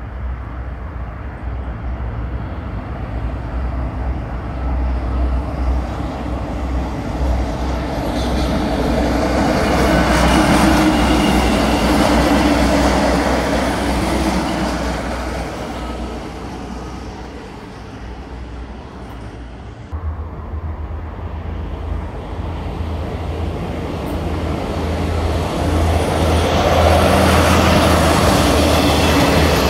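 Metrovagonmash diesel railcar passing close by: a steady low engine drone under rail and wheel noise. It swells to a peak about a third of the way in, eases, then builds again near the end.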